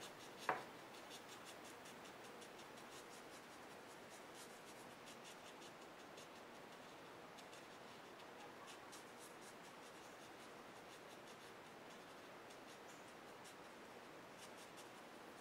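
Faint scratching of a water brush's tip rubbing over layered colored pencil on paper, working solvent in to blend the colors, with one light knock about half a second in.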